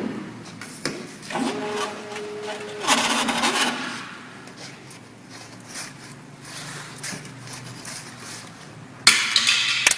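CNC channel letter bending machine at work: a steady whine lasting about a second and a half, then a loud metallic clatter about three seconds in, a low hum, and another sharp clatter near the end.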